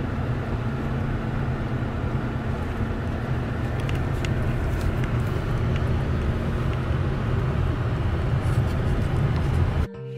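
Car driving slowly over a bumpy dirt road, heard inside the cabin: a steady low rumble of engine and tyres with a few small knocks and rattles. It cuts off abruptly just before the end, where music begins.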